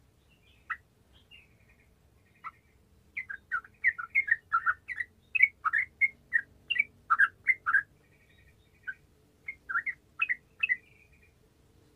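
Yellow-vented bulbul singing: quick clusters of short, bubbly chirping notes, busiest from about three to eight seconds in, with a few more near the end.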